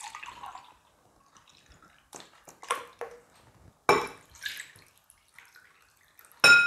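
Milk being poured and dripping, first into a glass and then from the glass into a bowl of sour cream, with a few small knocks of glass and spoon. Near the end comes a sharp clink that rings briefly, the loudest sound here.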